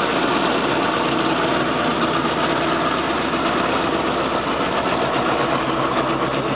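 CN diesel freight locomotives running with a steady engine drone as they pass close by, mixed with the noise of a long string of boxcars rolling along the rails.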